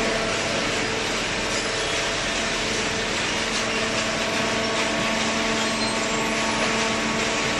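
A machine running steadily: a constant hiss with a steady multi-tone hum beneath it.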